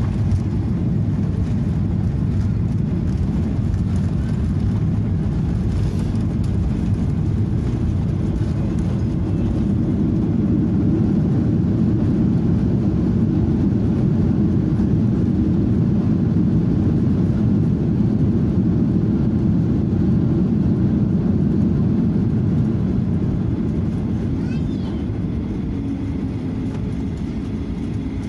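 Boeing 737-800 cabin noise over the wing during the landing rollout: a steady jet-engine and airflow roar that swells for about ten seconds in the middle as the CFM56 engines spool up in reverse thrust, then dies away near the end as the jet slows.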